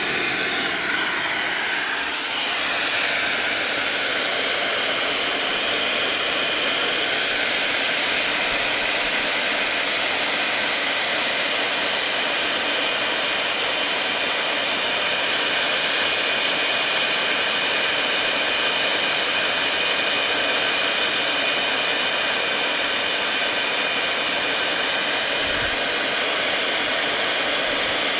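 Repaired hair dryer running on test: its fan motor gives a steady rush of blowing air with a high whine. The sound dips slightly and then settles about two to three seconds in.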